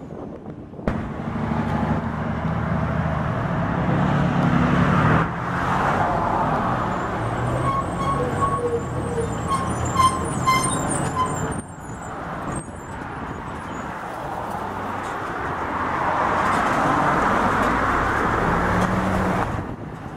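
Diesel semi-trucks hauling double belly-dump gravel trailers drive past, their engines pulling with the pitch stepping up and down, the sound changing abruptly a few times. About halfway through there is a run of light high clinks and squeaks.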